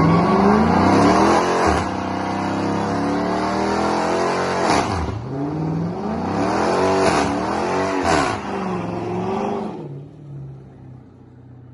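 Car engine revving hard, its pitch climbing and then dropping sharply about four times before climbing again, then fading out near the end.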